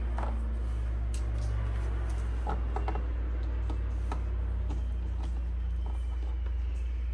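Scattered light clicks and taps of small metal screws and a driver bit being handled, over a steady low hum.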